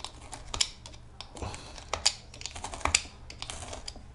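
Utility knife blade cutting through a worn Adidas Boost midsole: an irregular run of sharp clicks and scratching strokes as the blade works through the foam, with a few louder snaps along the way.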